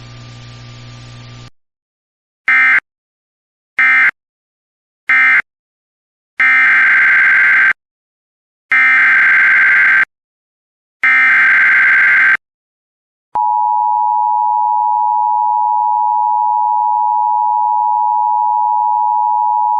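Emergency Alert System tones: three short SAME end-of-message data bursts, then three longer warbling SAME header bursts for the next alert, then the steady two-tone EAS attention signal starting about 13 seconds in. A faint hum comes before them in the first second and a half.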